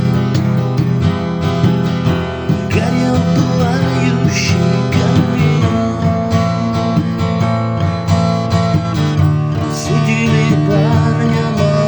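Acoustic guitar strummed in steady chords, an instrumental introduction with no singing yet.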